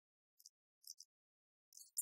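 Near silence, with a few faint, short high-pitched ticks about half a second in, a second in and near the end.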